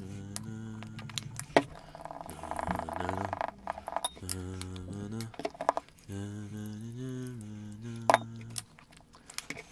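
A man humming a tune in low, held notes while a paintbrush clicks and scrapes against a bowl, mixing gouache paint. There are a few sharp taps, the loudest about a second and a half in and again near the end.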